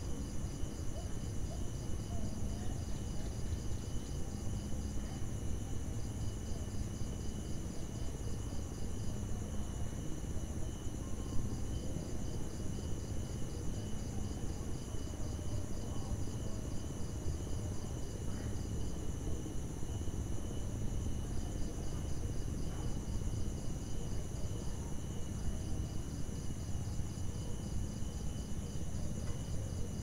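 Night ambience of crickets: steady high trilling, with another insect chirping in rapid pulses that come and go in runs of a few seconds, over a steady low rumble. A single brief tick sounds a little over ten seconds in.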